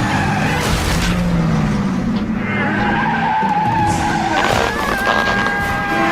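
Car tyres screeching in a long skid, a dubbed-in sound effect, with a held squeal that settles into steady high tones about halfway through.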